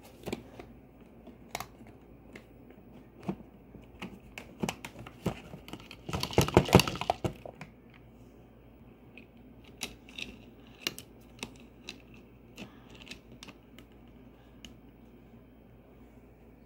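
Dishes and cooking things being handled: scattered light clicks and knocks, with a louder stretch of clattering about six seconds in.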